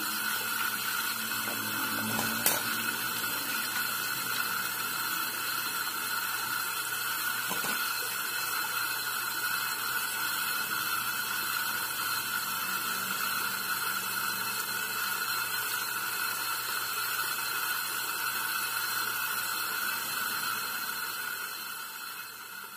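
Water running steadily from a tap during hand washing, tapering off near the end as it is turned off. A single sharp click comes a couple of seconds in.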